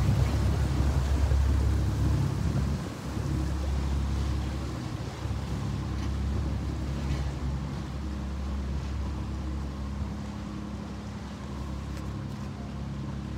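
Small motorboat's engine running with a low, steady drone as it passes close by, then fading as it moves away.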